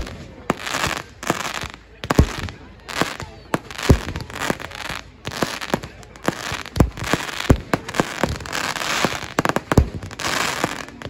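Fireworks display: a rapid, uneven series of sharp aerial-shell bangs, often several a second, mixed with short stretches of crackling from glittering stars.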